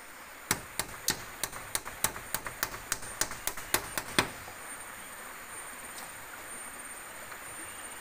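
Hammer tapping a nail into bamboo: a run of quick, even strikes, about three or four a second, that stops after some four seconds.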